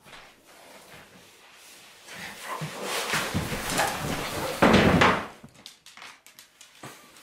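A person in a bulky padded costume topples over onto a rug and knocks a wooden chair over. There is scuffling as they stagger, then one loud crash about five seconds in, followed by a few light knocks.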